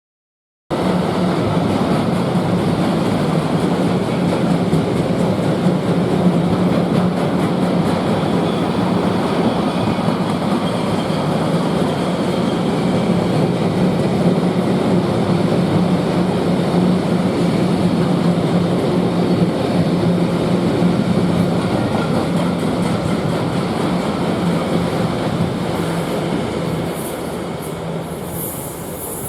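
Freight train passing close by: a steady loud rumble of wheels on the rails with a constant low hum, starting abruptly and easing slightly near the end, with a few high squeaks in the last seconds.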